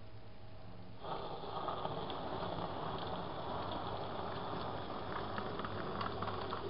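A model InterCity 125 train running past on the track: its electric motor and wheels set up a steady running noise that comes in suddenly about a second in, with light clicks as the wheels cross the rail joints.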